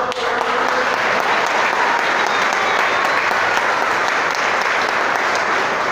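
A church congregation applauding, many hands clapping steadily.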